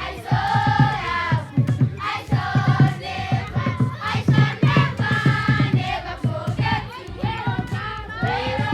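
Music with several voices singing together over a steady beat.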